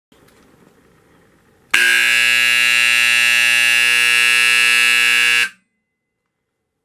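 National Time (Natsco) 411 low-voltage AC fire alarm horn sounding one loud, steady buzzing blast of nearly four seconds. It starts about two seconds in and cuts off suddenly.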